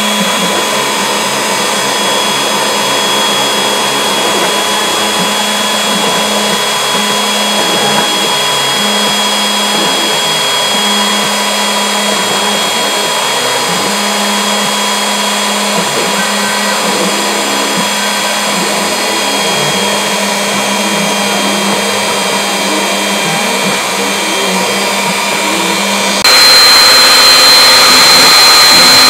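Hobby CNC spindle running steadily with a 1/16-inch flat end mill carving into a linoleum sheet, a continuous high whine over a lower hum that comes and goes. About 26 seconds in the sound jumps abruptly louder, with a higher whine.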